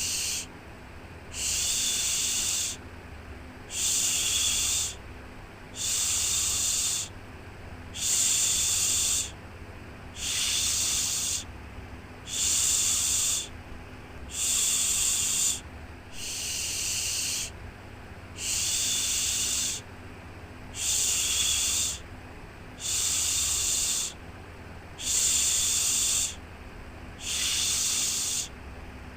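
Rhythmic 'shhh' shushing to soothe a baby to sleep: a hissing shush about a second long, repeated evenly about once every two seconds, over a faint steady low hum.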